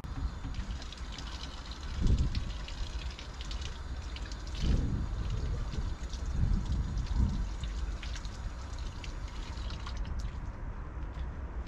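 Water running from a fountain tap and splashing as hands are rinsed under it, with a few dull low thumps along the way.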